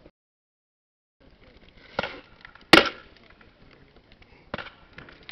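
M203 40 mm grenade launcher firing on a range: sharp reports about two seconds in, a louder one nearly three seconds in, and another about four and a half seconds in. The sound cuts out completely for about a second at the start.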